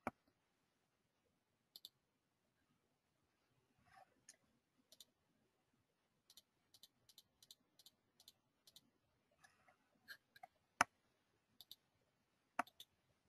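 Faint clicking at a computer against near silence: scattered single clicks, with a quick, even run of about eight clicks in the middle.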